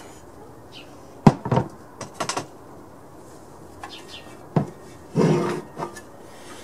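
A handful of light knocks and clunks from a small engine's painted sheet-metal gas tank being handled and turned over, the sharpest about a second in, with a short scraping rustle near the end.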